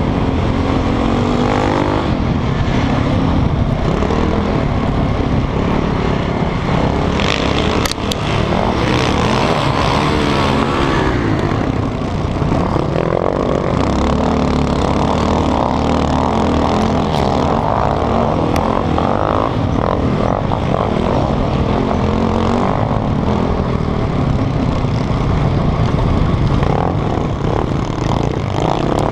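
Sport quad (ATV) engine heard up close from the rider's helmet, running hard and revving up and down without a break as it is ridden around the track, with other quads' engines nearby.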